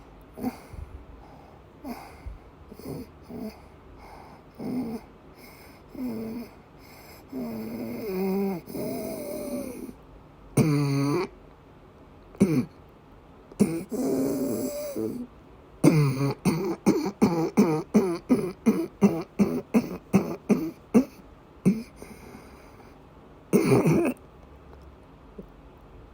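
A woman in an asthma attack coughing and wheezing: strained, pitched breaths and separate coughs, then a fast run of short coughs a little past the middle, and one more hard cough near the end.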